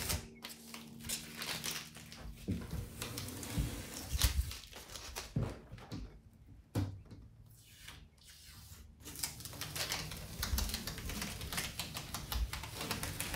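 Blue painter's tape being peeled off a door's glass and frame: irregular crackling rips that come in spurts, with a quieter stretch in the middle.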